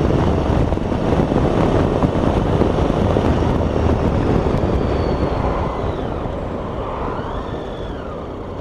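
Motorcycle engine and wind rush on the microphone while riding along, a steady rumbling noise that gradually gets quieter over the last few seconds as the bike eases off.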